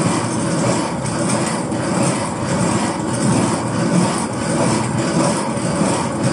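Granite millstones of a small motor-driven flour mill turning and grinding grain, a steady grinding rumble with a slight regular pulse.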